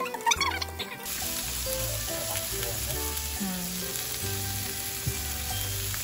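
Food sizzling in oil in a frying pan, a steady sizzle that comes in abruptly about a second in.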